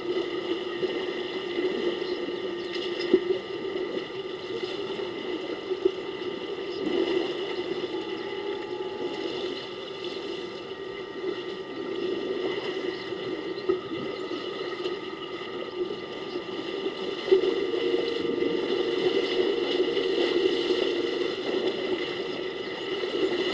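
Water sloshing and splashing as elephants wade and bathe in a waterhole, over a steady hum. A few sharper splashes stand out, and the splashing grows louder from about two-thirds of the way in.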